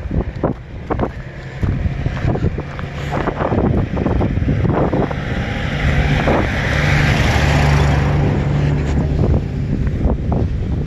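Wind buffeting a phone microphone: a loud, low, gusty rumble that swells a little past the middle, with irregular knocks and thumps, mostly in the first half.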